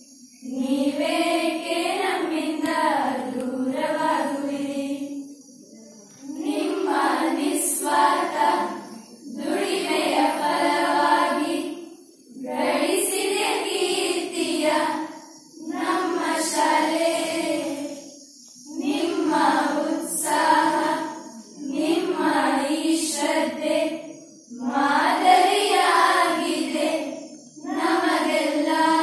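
A group of schoolgirls singing a song together without accompaniment, in phrases of two to three seconds with short pauses for breath between them.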